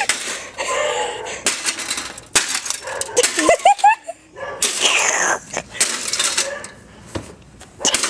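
Sheet-metal computer tower case being smashed: a series of crashing bangs, about one every second, with clattering and rattling of the loose metal panels and parts.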